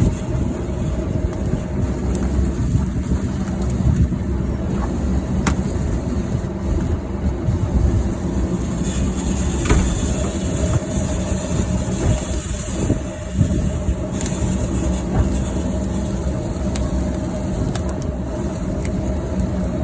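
Oak firewood burning in a chicken-roasting oven: a steady rumble with a few sharp crackles.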